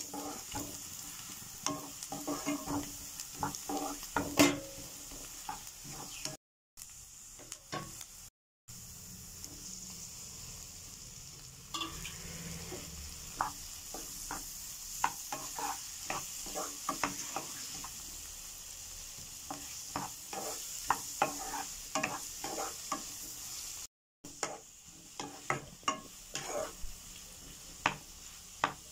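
Chopped onions and tomatoes frying in oil in a nonstick pan, with a steady sizzle. A wooden spatula stirs and scrapes against the pan, making frequent short knocks and scrapes. The sound cuts out briefly three times.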